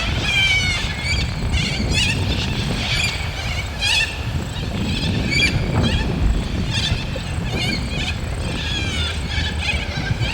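A flock of wild parrots calling from a treetop, many short harsh screeching calls repeating and overlapping, over a steady low rumble of wind on the microphone.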